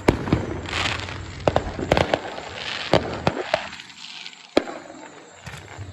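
Fireworks going off: about ten sharp bangs at irregular intervals, with crackling between them.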